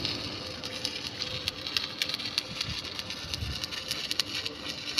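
Electric arc welding: an irregular crackle and sizzle of many sharp clicks over a faint steady hum.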